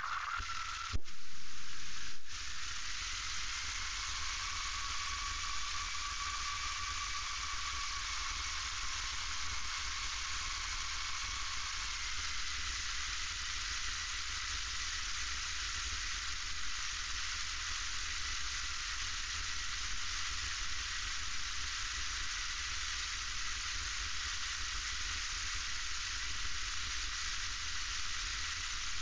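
Steady hiss inside the cockpit of a single-engine light airplane rolling along a wet runway, with a faint whine that wavers and then holds steady. A short louder burst comes about a second in.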